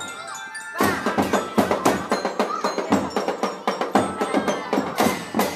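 A school drum band playing: a quick run of drum strokes with ringing bell-like tones over them, picking up strongly about a second in.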